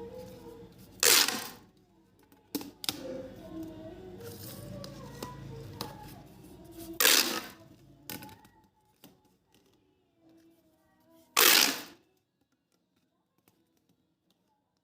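Plastic pop tube toys being stretched and bent, giving three loud zipping pops of about half a second each: about a second in, midway, and near the end. A few short clicks and rattles fall in between.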